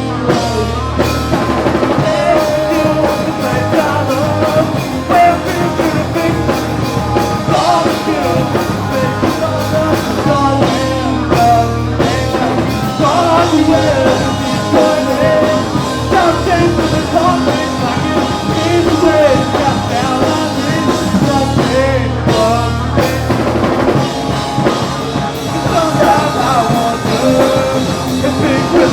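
Punk rock band playing live at full volume: drum kit, distorted guitars and bass, with a singer's vocals over them.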